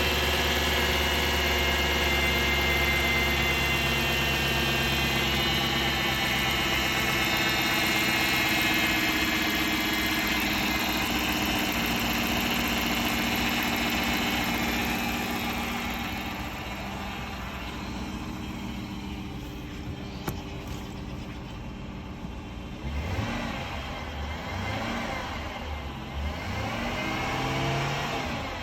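2011 Dodge Durango's 5.7-litre Hemi V8 running with a steady high whine over the engine note for about the first half, then quieter, with engine speed rising and falling near the end. The whine is the unexplained noise the owner is trying to identify, at 115,000 miles.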